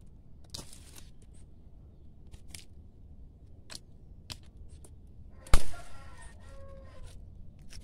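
Hand pruning shears cutting rose canes: a few light clicks, then one loud sharp snip about five and a half seconds in.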